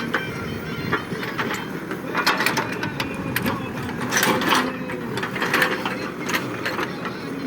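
ACE backhoe loader's diesel engine running, with clusters of metallic clanks and rattles from the machine's working gear, busiest from about two seconds in.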